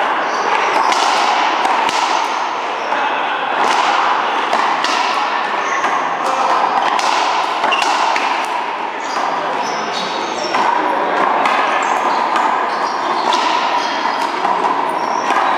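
Racquetball rally: the hollow rubber ball struck by racquets and smacking off the wall and floor, a quick series of sharp hits about once a second.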